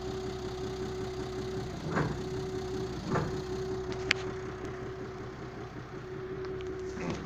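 Audi engine idling steadily with a constant whine over the hum, a couple of dull thuds about two and three seconds in, and a single sharp click about four seconds in.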